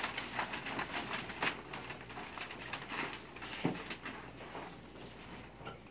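Children imitating bird calls with short chirps and coos, along with the rustle of a bird costume and footsteps. The calls come thick at first and die away near the end.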